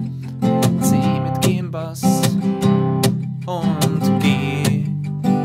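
Steel-string acoustic guitar played in a country-style alternating-bass strum: a picked bass note followed by down-up chord strums. It moves through the refrain chords: A minor and F, then C with G in the bass, G, and E.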